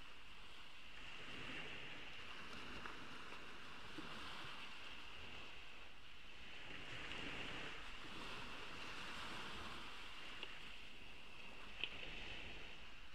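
Ocean waves washing ashore in a soft steady wash that swells and eases gently every few seconds. A single sharp click comes near the end.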